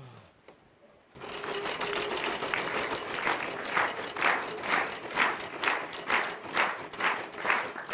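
Game-show prize wheel spinning, its pointer flapper clicking against the pegs: the clicks start about a second in, come very fast at first, and slow to about two a second as the wheel loses speed.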